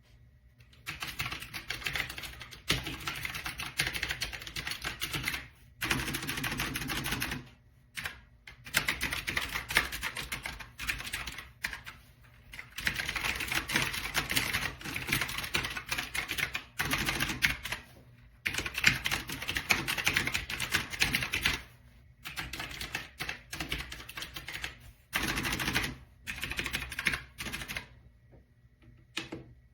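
Clicky blue switches of an AULA F2088 typewriter-style mechanical keyboard being typed on in quick runs of keystrokes, broken by short pauses.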